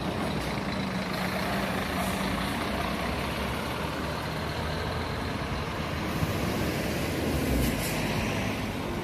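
Intercity coach's engine running as the bus pulls out of the terminal. Short hisses of compressed air from the air brakes come about two seconds in and again near the end.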